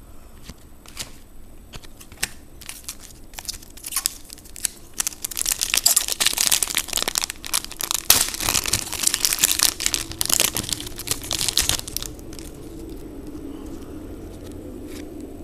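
Crinkling and tearing of a trading-card pack's wrapper as it is ripped open and handled. A few sharp crackles come first, then about seven seconds of dense crinkling that stops near the end.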